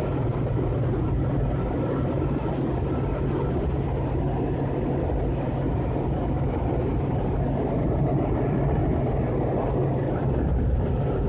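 Washington Metro railcar running at speed, heard from inside the car: a steady rumble with a low hum underneath.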